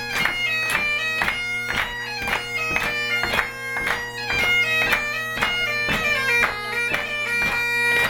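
Bagpipes playing a tune: a melody with many quick ornamental notes over steady, unchanging drones.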